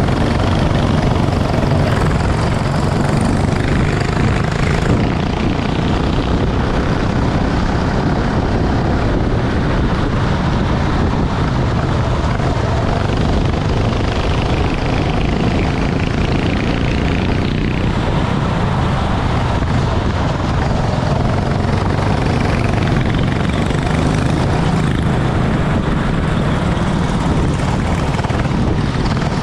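Racing kart engine running under a loud, steady rushing noise, with no clear rises or falls in revs.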